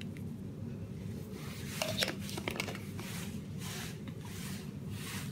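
A few faint clicks and soft rustles over a low steady hum, from a glass spice shaker being handled and shaken over raw chicken drumsticks.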